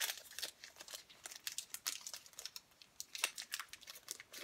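Packaging crinkling and rustling in irregular crackles as a small skin-cream sample package is opened by hand.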